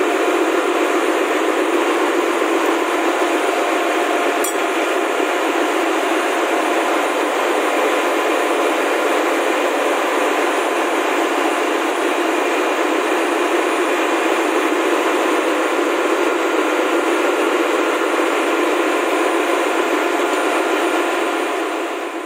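Steady, even machinery noise of a ship's engine room, with the main engine stopped for maintenance. One faint click comes about four and a half seconds in, and the noise fades near the end.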